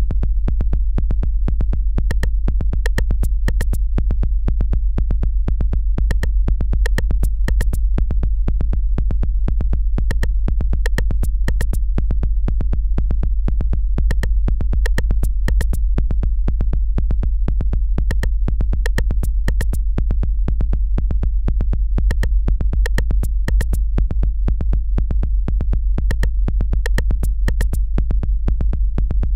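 Electronic music: sharp clicking drum-machine beats in a steady repeating pattern over a continuous deep synthesizer bass.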